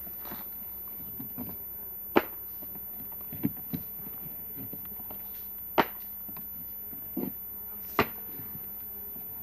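Honeybees buzzing around the hives as a steady low hum, broken by about half a dozen sharp knocks and clicks, the loudest about two, six and eight seconds in.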